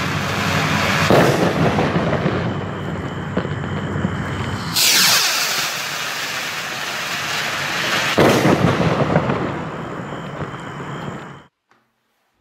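25 mm ATLAS 1700 firework rockets launching and climbing, a continuous rushing hiss with crackle from the burning motors and their spark trails. Three loud surges come about a second in, near the middle and about two-thirds through. The sound cuts off abruptly near the end.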